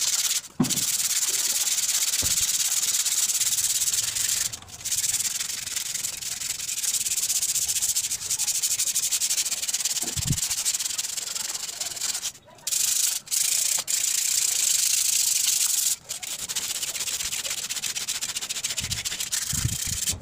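Sandpaper rubbed by hand back and forth over the rusty steel tubes of an office chair's five-star base, taking off the rust. It makes a steady scratchy hiss, broken by a few brief pauses.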